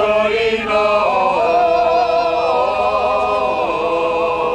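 Choir singing long, held notes.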